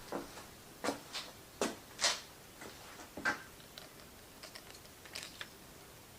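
A handful of light clicks and knocks, then fainter ticks, from engine parts and tools being handled on the bench.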